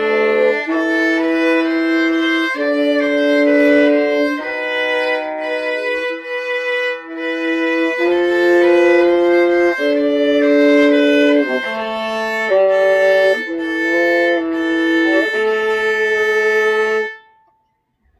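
Two violas playing a duet in sustained, bowed notes, the two parts moving together in harmony. The music ends about a second before the end, followed by near silence.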